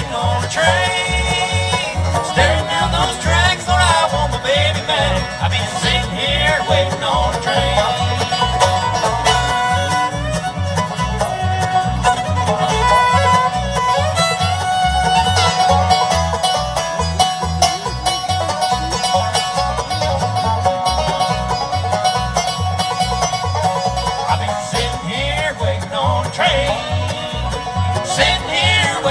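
Live bluegrass band playing an instrumental break: banjo, fiddle, mandolin and acoustic guitar over a steady upright bass beat.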